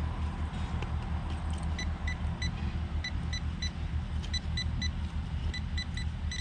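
Handheld metal-detecting pinpointer beeping in short bursts as it is probed into a dig hole, signalling metal close to its tip. The beeps start about two seconds in and come faster toward the end, over a steady low rumble.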